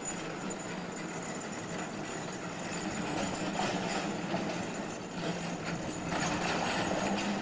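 Vintage streetcar rolling slowly through a track curve: a steady low hum with its wheels clicking irregularly on the rails. It grows a little louder about halfway through as the car comes closer.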